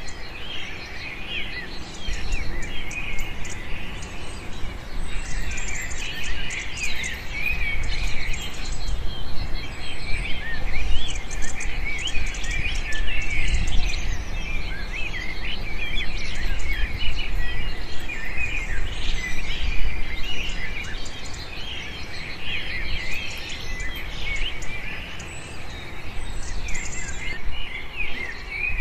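Many small birds chirping without a break, a dense chorus of short, high calls, with a low rumble underneath.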